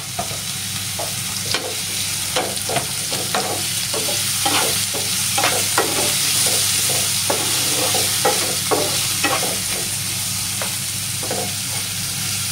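Chopped pineapple sizzling in ghee in a nonstick frying pan, stirred with a wooden spatula that scrapes and taps across the pan many times.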